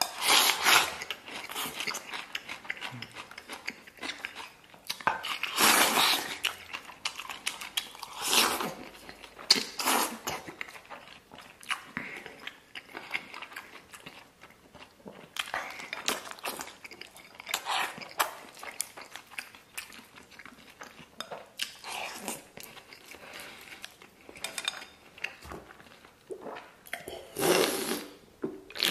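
Close-miked eating sounds: a man chewing mouthfuls of braised pork belly and rice, in irregular loud bursts. Near the end he drinks from a beer can.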